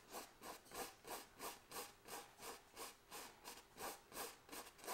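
Filbert brush scrubbing oil paint on a stretched canvas in short, even strokes, about three a second, as the colour is pulled down a painted mountain. The strokes are faint.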